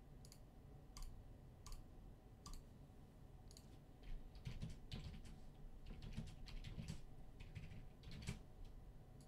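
Faint clicking on a computer keyboard and mouse: a few separate clicks in the first three seconds, then a quick run of typing about four seconds in.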